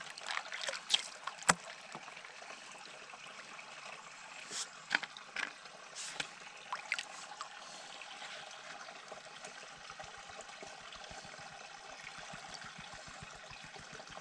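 Water splashing and trickling as a gold pan of gravel and clay is swirled and washed in creek water. There are sharp splashes and knocks through the first half, then a steadier trickle.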